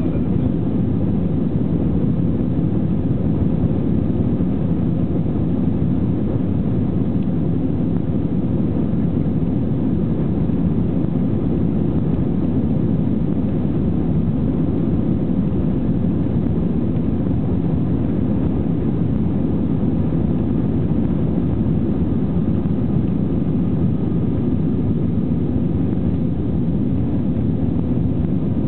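Airbus A320-family airliner's jet engines at takeoff thrust heard from inside the cabin during the takeoff run: a steady, loud rumble with a faint engine whine above it.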